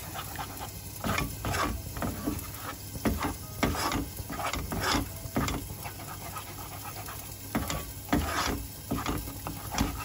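Plastic spatula scraping and stirring scrambled eggs around a non-stick wok in quick, irregular strokes, over the eggs frying.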